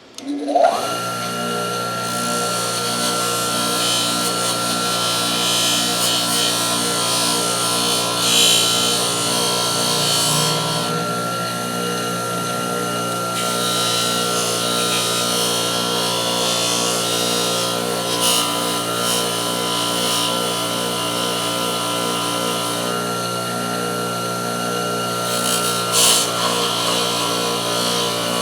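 Electric bench motor switching on and spinning up, then running steadily with a hum, while metal pliers are held against its spinning wheel for cleaning. The wheel contact makes a rasping hiss that flares briefly a few times.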